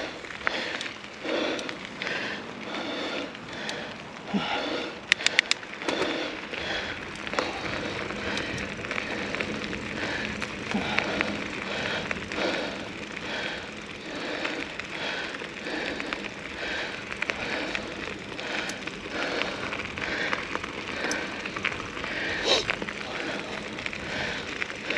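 Mountain bike rolling over a dirt trail: tyres crunching over the ground and the bike rattling, with a quick cluster of sharp clicks about five seconds in.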